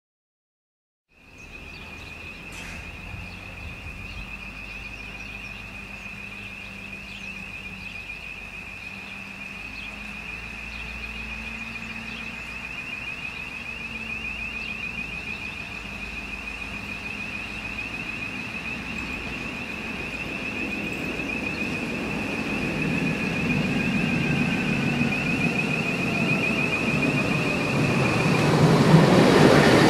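Tatra KT8D5 articulated tram approaching along its track, its running noise growing steadily louder toward the end. Over it, a high, rapidly pulsing tone holds one pitch and stops a little before the end.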